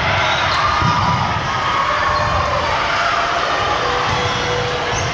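Basketball dribbled on a gym floor during a game, repeated bounces under a steady din of crowd voices in a large hall.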